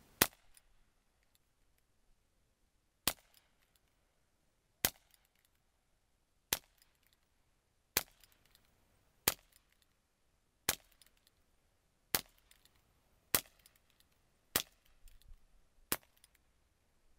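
Crosman 357 CO2 air revolver with a 6-inch rifled barrel firing a string of shots: eleven sharp pops, about one every one and a half seconds.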